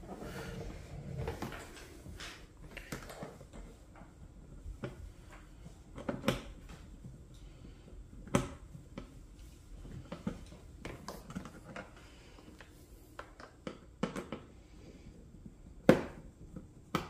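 Scattered clicks and knocks of hard plastic being handled as a screw is backed out of a toy ride-on ATV's plastic seat and the seat is worked loose, with one sharper knock near the end.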